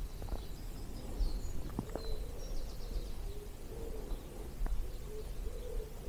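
A pigeon cooing, a low coo repeated every half second or so, with small songbirds chirping high above it and a steady low wind rumble on the microphone. There are a couple of sharp ticks about two seconds in and again a little before the end.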